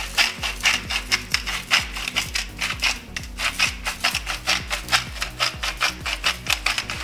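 Hand-twisted spice grinders, first salt and then a steel pepper mill, crunching in a quick, even run of dry grinding strokes, several a second. Background music plays underneath.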